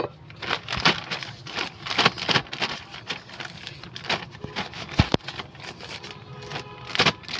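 Potting mix of soil and dung scooped with a metal scoop from a plastic tub and packed into a polythene nursery bag: rustling plastic, scraping and crackling of loose soil. Two dull knocks, about a second in and about five seconds in.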